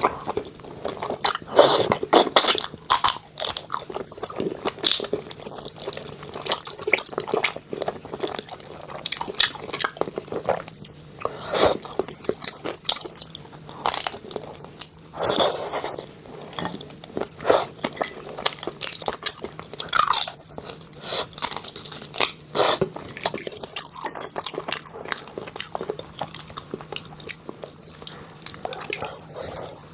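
A person biting and chewing food close to the microphone, with frequent irregular crunches.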